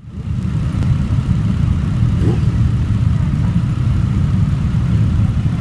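Many motorcycle engines running together at idle in a dense, steady low rumble, rising quickly from silence at the start.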